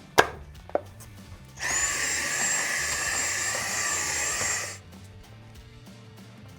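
Cordless drill-driver running for about three seconds as a high, steady whine that rises briefly as it spins up, after a couple of sharp clicks near the start.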